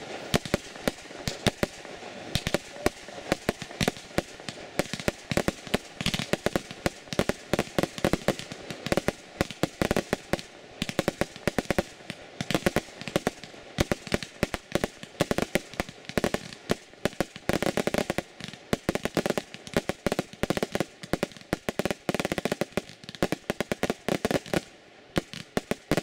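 Fireworks display: aerial shells bursting in a rapid, unbroken string of loud bangs and pops.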